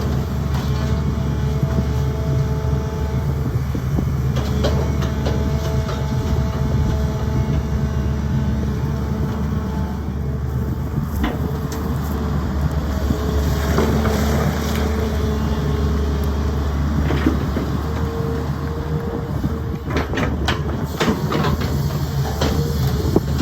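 Sany excavator's diesel engine running steadily under load, with a hydraulic whine that comes and goes as the arm works. Occasional metallic clanks and knocks, several near the end, from the bucket and boom.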